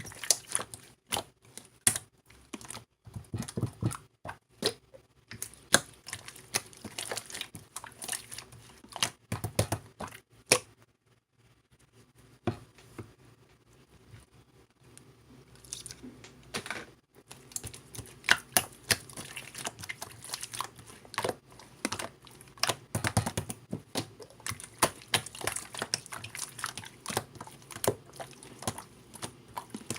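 Clear slime being squished and pressed by hand, making quick runs of wet clicks and pops. The clicking eases off for a few seconds near the middle, then starts again.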